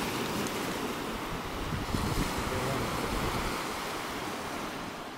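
Baltic Sea surf washing steadily onto a sandy beach, with wind gusting on the microphone.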